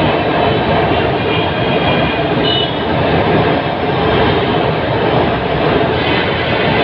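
Electric metro train of Lahore's Orange Line running on its track: a loud, steady rumble with faint high-pitched whines a couple of times.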